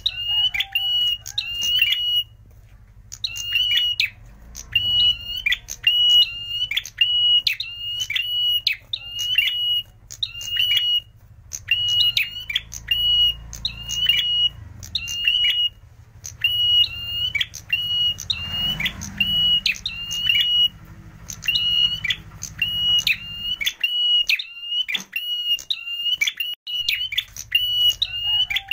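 Ashy tailorbird (prenjak merah) singing: a long series of sharp, clear, high notes, about two a second, in runs broken by short pauses. A faint low hum runs underneath.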